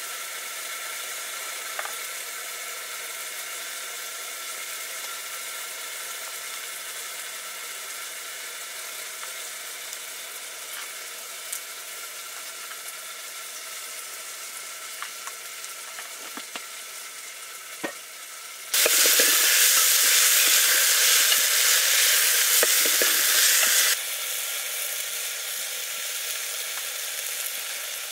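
Food frying in a pan, with a steady sizzle and a few faint ticks. About two-thirds of the way through the sizzle suddenly gets much louder for about five seconds, then drops back to a steady moderate sizzle.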